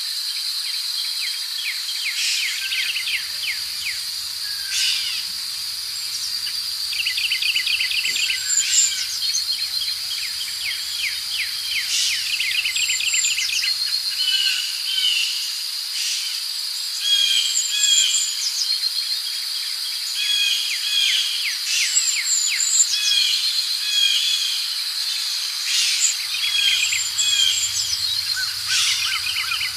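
Forest ambience: several birds chirping and trilling in short, repeated phrases over a steady high-pitched insect drone.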